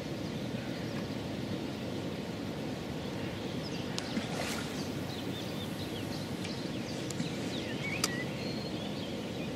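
Steady outdoor noise with faint bird chirps. About four seconds in, a feeder rod is cast overhead with a brief swish, and a single sharp click follows near eight seconds.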